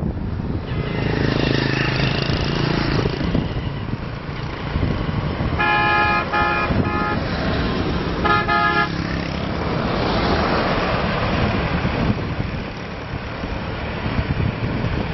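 Road traffic with motorbike engines running past, and a vehicle horn honking three short times: two close together about six seconds in, and a third about a second later.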